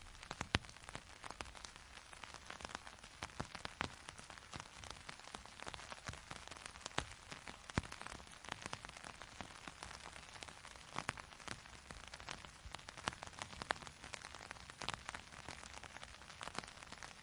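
Rain pattering on an umbrella's fabric canopy: a dense, irregular run of sharp drop hits over a steady hiss.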